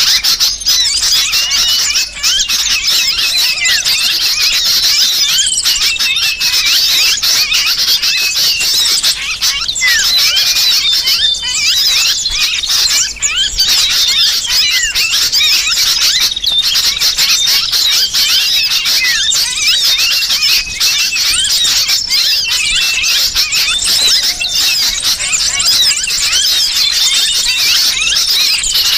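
Dense, unbroken chorus of small-bird chirps and squeaky calls, layered with the distressed calls of a sooty-headed bulbul (kutilang) sounding as if trapped. It is a mixed bird-lure call made to draw small birds in.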